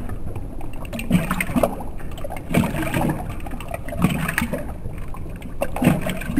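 German Shorthaired Pointer lapping water from a stainless steel bowl: splashing and sloshing in irregular bursts about every second or so.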